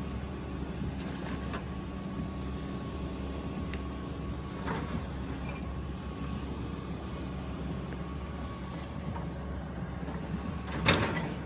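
Diesel engine of a demolition excavator running steadily under hydraulic load, with a few faint knocks of debris. Near the end a loud crash as brick and rubble come down.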